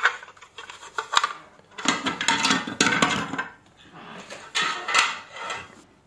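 The opened laptop power adapter's hard plastic case halves clacking as they are handled and set down, and the bare circuit board sliding on the workbench as it is turned around, in a string of knocks and scrapes.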